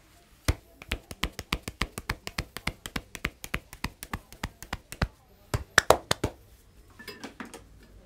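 Rapid, rhythmic hand strikes of a barber's percussive massage (tapotement) on a client's head, neck and shoulders, about six slaps a second, ending with a few louder slaps about six seconds in.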